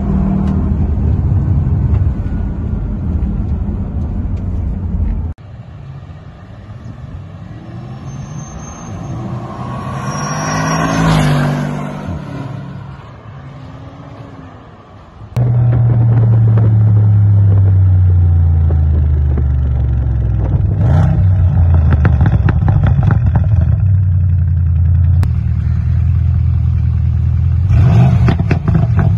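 Bentley Continental GT's 4.0-litre twin-turbo V8 through a newly fitted Quicksilver catback exhaust. It is first heard from inside the cabin while driving, then as a drive-by that swells to a peak and fades, then loud again close by, with a rapid crackle near the end.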